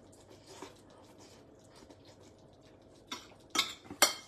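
Cutlery on a plate while eating pasta: a quiet stretch with faint eating sounds, then from about three seconds in a few sharp clinks of a fork and spoon against the plate.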